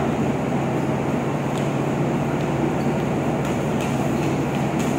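Steady drone of a ship's machinery and ventilation filling an enclosed steel cargo deck, with a constant low hum underneath. A few faint sharp knocks sound over it.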